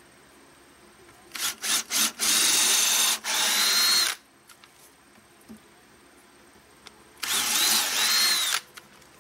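Cordless drill boring through poplar scrap-wood framing. A few short trigger blips lead into a run of about two seconds, then a second run of about a second and a half near the end.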